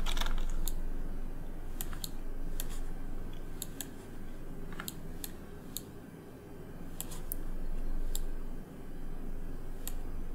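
Scattered clicks of a computer mouse and keyboard, irregular and about one or two a second, over a steady low hum.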